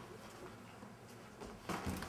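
Quiet gym room tone, then two quick gloved punch impacts close together near the end.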